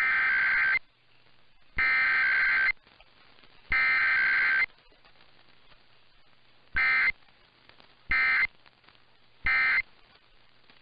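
Emergency Alert System data bursts from a radio station's required weekly test. There are three raspy, buzzing header bursts of just under a second each, then three short end-of-message bursts, with short gaps of quiet between them.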